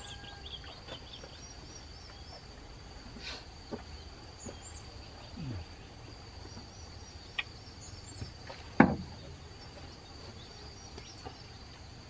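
Steady high-pitched insect drone with small birds giving short, high chirps again and again. About nine seconds in there is one loud, sharp crack.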